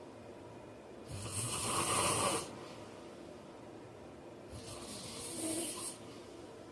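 A man snoring in his sleep: two breathy snores with a hissing rush of air. The louder one comes about a second in, and a weaker one comes past the middle.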